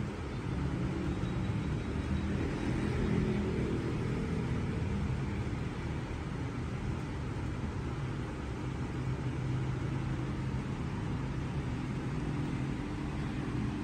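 Steady low background rumble with a faint hum, unchanging throughout.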